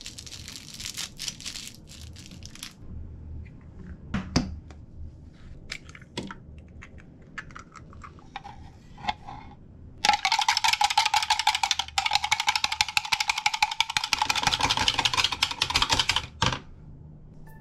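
A fork beating egg in a measuring cup: fast, continuous clicking of the fork against the cup's sides for about six seconds, starting about ten seconds in. Before it come light crinkling and a few sharp taps.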